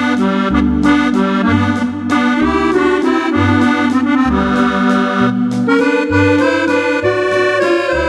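Roland FR-4x digital accordion playing a waltz, a melody with chords over an alternating left-hand bass line.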